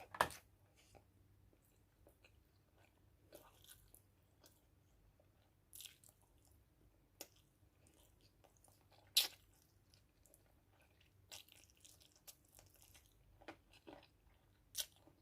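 A person chewing and biting on adobo-braised chicken feet: scattered soft crunches and mouth clicks, with a few sharper crunches spread through.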